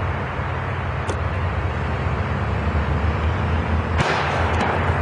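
A sudden loud bang about four seconds in, taken for a big vehicle backfire, fading over about a second. Under it, the steady rumble of passing road traffic.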